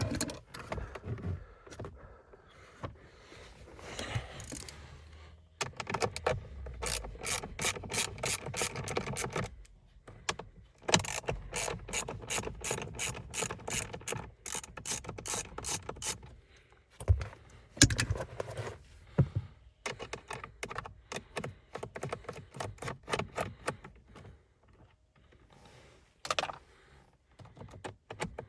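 Hand ratchet clicking in long quick runs as it unscrews T25 Torx bolts from a steering column, with a few knocks between the runs.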